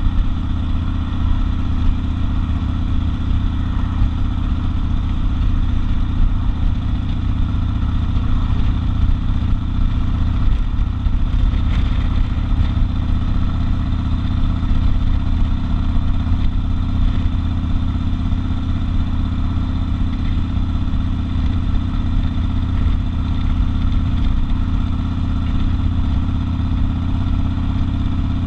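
Harley-Davidson XL 1200 Custom Sportster's air-cooled 1200 cc V-twin running steadily, a deep, even engine note with no revving.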